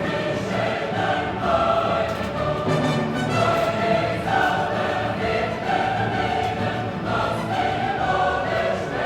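Choral music, voices holding long notes that change pitch every second or so, with orchestral backing.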